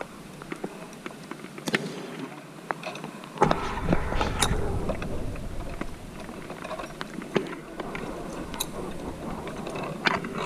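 Footsteps knocking on the wooden planks of a rope sky bridge and tree platform, with scattered clicks and clinks of harness gear. A rumbling rush comes in about three and a half seconds in and lasts a couple of seconds.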